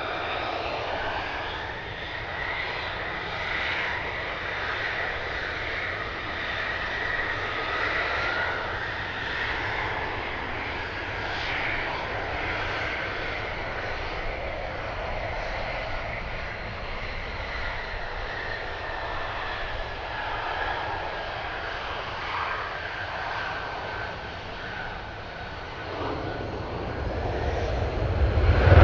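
F-35A Lightning II fighters' F135 turbofan engines running at taxi power: a steady jet whine with a high tone that slowly sinks in pitch. Near the end the noise grows louder as the lead jet powers up for its takeoff roll.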